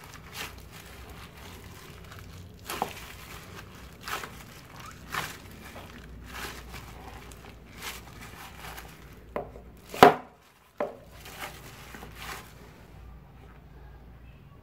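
Soft yeast dough being pressed and patted in a bowl by a plastic-covered hand: soft slaps and plastic crinkling about once a second, with one sharp knock about ten seconds in, the loudest sound. It goes quieter in the last couple of seconds.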